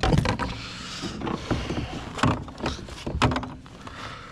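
Knocks and clatter on a fishing kayak as a just-landed fish and gear are handled, with a noisy rush at the start and a run of sharp knocks after.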